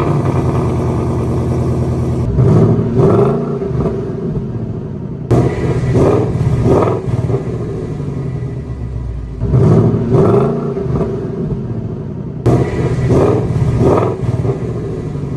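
Ford Mustang GT's 5.0 V8 with aftermarket headers and stock mufflers idling and being revved in pairs of quick throttle blips, four times over, each rev rising and dropping back to idle.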